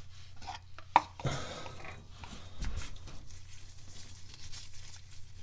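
A sharp metallic click, then faint scraping and rubbing as the speedometer pinion gear sleeve is worked out of the transmission case, over a steady low hum.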